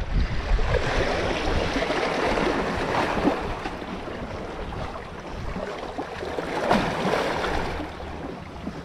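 Sea water washing and splashing along the shore, swelling and easing, with a stronger surge about two-thirds of the way through.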